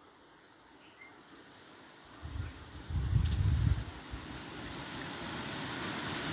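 A spoon stirring a coconut-and-jaggery filling in a pan, with low thuds around the middle and a steady hiss that grows louder toward the end. A few high bird chirps sound in the first half.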